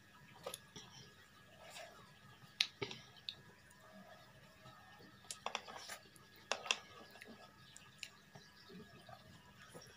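Faint chewing and scattered light clicks and taps of a utensil against a bowl of instant ramen noodles, with a few sharper clicks around the middle.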